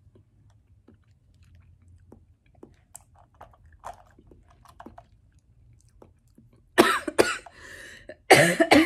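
Faint chewing and mouth clicks, then about seven seconds in a woman coughing hard in two bursts with a breathy gasp between them. The coughing is brought on by the heat of a spicy chili rim.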